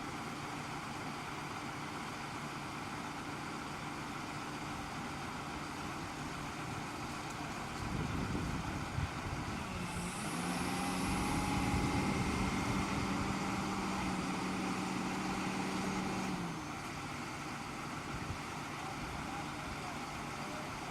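Utility truck engine idling, then running faster at a steady higher pitch for about six seconds midway before dropping back to idle.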